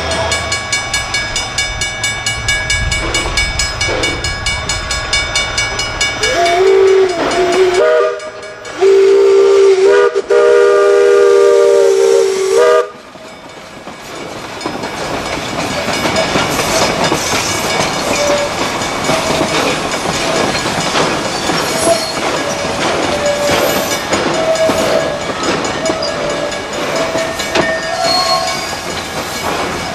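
A train running, with a long blast of its multi-tone whistle about seven seconds in: the chord bends up as it starts, holds for about five seconds with one brief break, and cuts off suddenly, after which the train's running rumble carries on.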